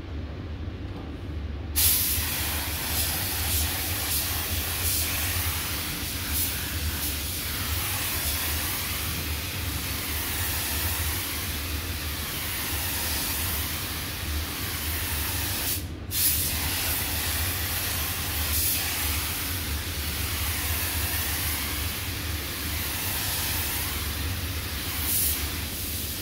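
Compressed-air paint spray gun hissing steadily as it lays a light blend coat of silver base coat. It starts about two seconds in and cuts out briefly just past halfway as the trigger is let go between passes. A steady low hum runs underneath.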